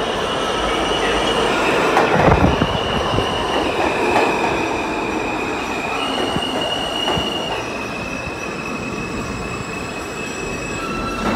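New York City subway M train pulling into an underground station and running past at slowing speed. Long high squeals step up and down in pitch over a steady rumble, with a few heavy clacks of wheels over the rails about two, four and seven seconds in.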